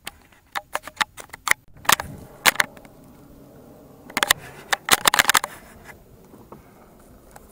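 Handling noise from a small action camera being moved and repositioned: irregular sharp clicks, knocks and scrapes against the microphone, in two clusters, about two seconds in and again from about four to five and a half seconds.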